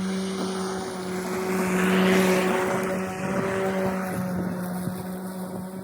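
Battery-powered electric lawn tool running with a steady motor hum as it cuts tall grass. A rushing hiss swells and peaks about two seconds in.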